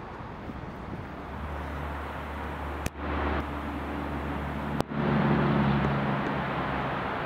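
Georgetown Loop Railroad train locomotive working, a steady low engine hum that grows louder after about five seconds. Two sharp clicks break the sound about three and five seconds in.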